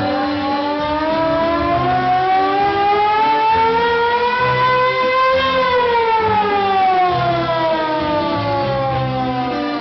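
A siren wailing: one long rise in pitch for about five seconds, then a slow fall, over dance music with a steady bass line.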